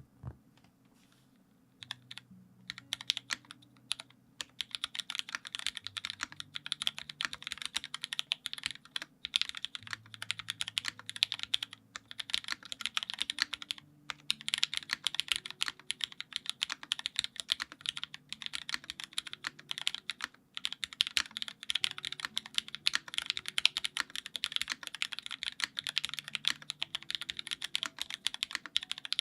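Fast, continuous typing on a Dalco 959 mini mechanical keyboard with Hyperglide Cherry MX Black linear switches in an aluminum plate and GMK keycaps. The keystrokes start about two seconds in and run as a dense stream of clicks, with a few brief pauses.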